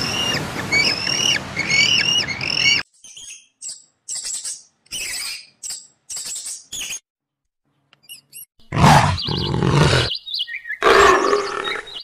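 A sequence of animal calls: a quick run of repeated high, pitched calls, then short, scattered high squeaks, then loud growling roars of a big cat from a little before the last three seconds.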